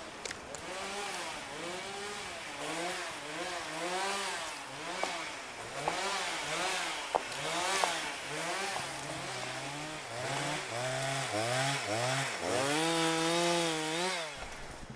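Two-stroke chainsaw being revved up and down over and over. Near the end it holds a steadier pitch, then cuts off about a second before the end.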